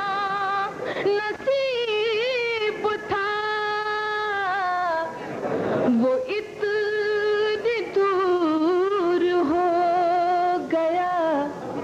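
A woman singing ghazal verses in tarannum, the melodic sung recitation of Urdu poetry, with long held notes that waver in pitch. There is a short break about halfway through.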